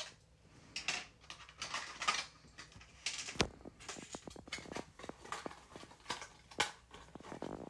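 Small cardboard box of plastic toy soldiers being handled and turned over in the hands: a run of light irregular taps, scrapes and rustles, with one louder knock midway.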